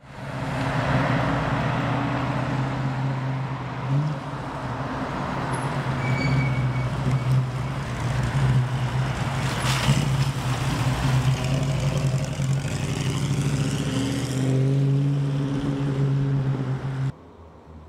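Engine of an old canvas-topped forward-control 4x4 truck running steadily as it drives past and pulls away, a low engine hum over road noise. The sound cuts off abruptly about a second before the end.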